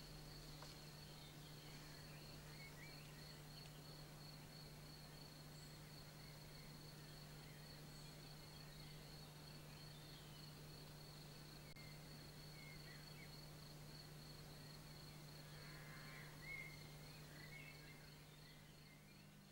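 Faint countryside ambience: an insect's continuous high, finely pulsed trill, with a few faint bird chirps, one a little louder about sixteen seconds in, over a low steady hum.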